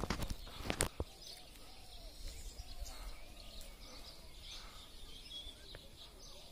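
Outdoor ambience with birds chirping and twittering, and a few sharp knocks in the first second.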